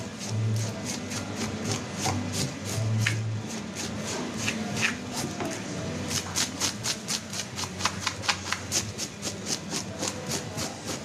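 A bream being scaled on a wooden board: quick scraping strokes over the fish's skin, sparse at first and then about four a second in the second half.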